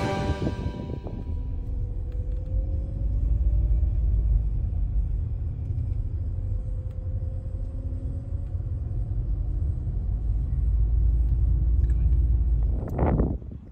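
Car driving slowly along a sandy unsealed track, heard from inside the cabin: a steady low rumble of engine and tyres with a faint, slowly wavering hum. A brief louder sound comes near the end.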